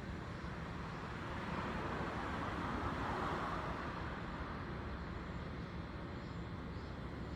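Steady background hum of traffic, with a vehicle passing that swells and fades about two to three seconds in.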